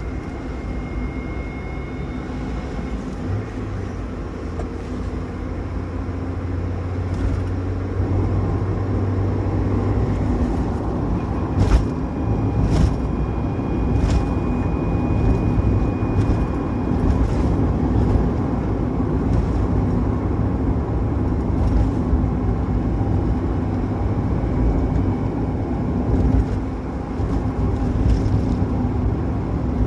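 Car driving, heard from inside the cabin: steady engine and road noise, with a thin high whine at times, which the owner hears as a whine on acceleration. A few short knocks come around the middle.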